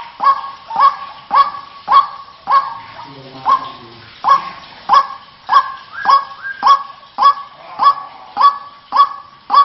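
White-breasted waterhen (ruak-ruak) calls from a trapping lure recording: a loud, monotonous series of harsh notes repeated a little under twice a second, with a short break about three seconds in.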